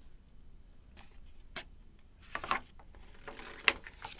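A picture book's page being turned by hand: a few short paper rustles and a sharp tick near the end.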